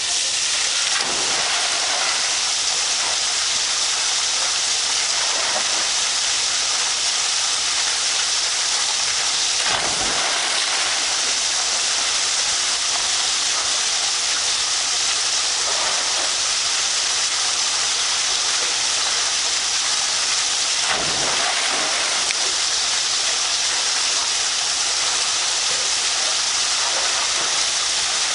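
Water pouring off the end of a pool's rock waterslide and splashing into the pool: a steady, loud hiss of falling water. A few brief dull thumps stand out, about a second, ten seconds and twenty-one seconds in.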